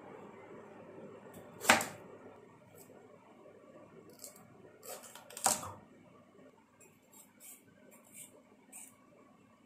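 Kitchen utensils being handled: two sharp knocks about four seconds apart and a scatter of faint clicks over a low hiss.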